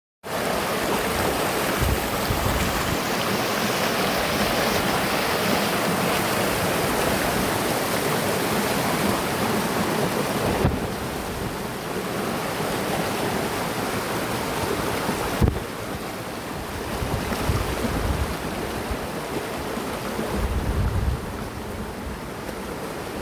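River water rushing and cascading over rocks: a full, steady hiss of flowing water. It drops a little in level about eleven seconds in and again about fifteen seconds in.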